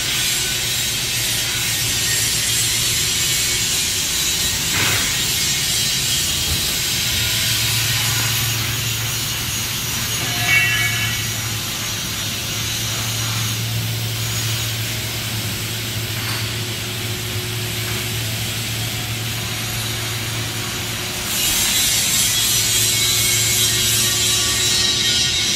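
Steady machine-shop noise: a low hum under a continuous hiss, with a brief high chirp about ten seconds in. It gets louder about 21 seconds in.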